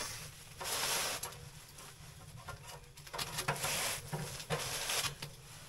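Handling noises, rustling with a few light knocks, in several short bursts.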